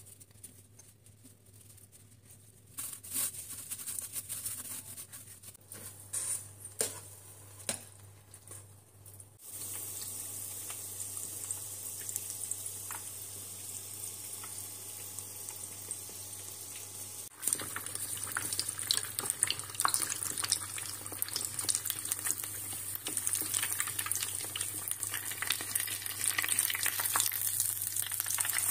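Breaded croquettes deep-frying in a pot of hot oil: a steady sizzle sets in about a third of the way through and turns louder and crackly about halfway. Before it come a few light knocks and handling sounds.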